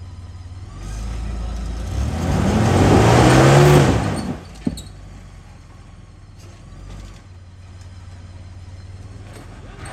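Jeep Wrangler's engine revving hard under load as it climbs over rocks, the revs rising for about two seconds and then dropping off suddenly. A single sharp knock follows, and the engine runs on lower.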